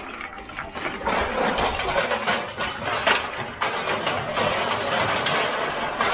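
Loose aluminum cans clattering as a bag of them is emptied into a recycling center's hopper, with machinery running underneath. It is a dense, steady rattle that starts about a second in.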